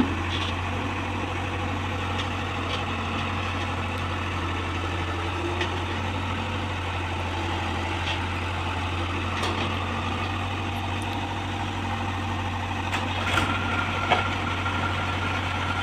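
Heavy machine's engine idling steadily with a low, even hum, and a few light clicks over it.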